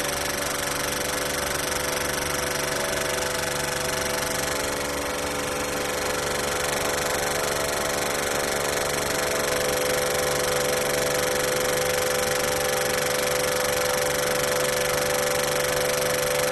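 Vacuum pump running steadily with a dense hum and several steady tones, pulling down the vacuum in a mixing reactor vessel as the vacuum degree climbs.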